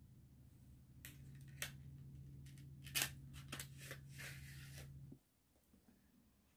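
Faint clicks, taps and light scraping of small objects being handled, over a low steady hum that cuts off suddenly about five seconds in.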